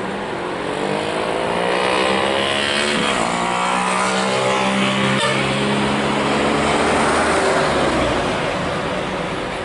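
Lion Air Boeing 737-900ER's CFM56 jet engines running loud with a rushing whine as the airliner rolls out on the runway after landing and passes by. The sound swells over the first two seconds, sweeps in pitch as it passes, and eases near the end.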